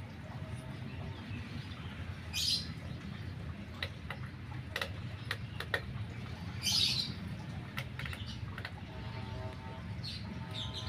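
Short high bird chirps, two standing out, over a steady low hum, with a few faint clicks in between.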